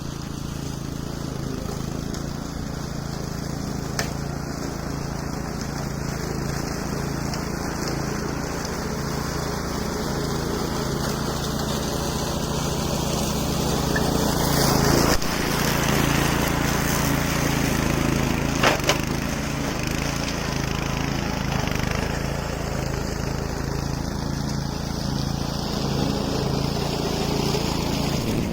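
HAIGE HG-CK165B self-propelled brush mower's engine running steadily, with the rougher noise of cutting through weeds growing louder about halfway through and a few sharp clicks.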